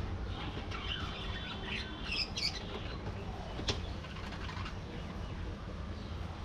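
A colony of budgerigars chirping in short high calls, mostly in the first half, with wings flapping and a sharp click a little past the middle.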